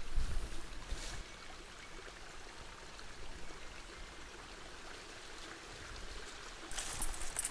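A small woodland stream trickling softly, with a brief low thump in the first second. Near the end a sharper crackling rustle starts.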